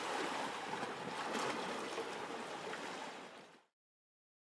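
Small waves lapping against a rocky lakeshore, a steady wash of water with faint splashes, fading out and stopping about three and a half seconds in.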